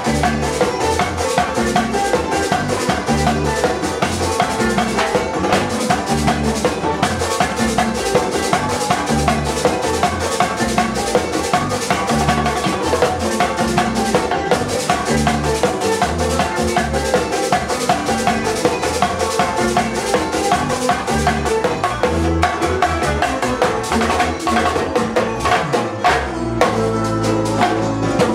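Live Latin band music with a steady, drum-heavy beat, played by a group with acoustic guitar, keyboard, güira and drums.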